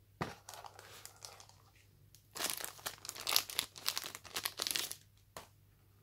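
Thin clear plastic bag crinkling as a phone is pulled out of it: a few light crackles at first, then about two and a half seconds of dense, loud crinkling, and one last crackle near the end.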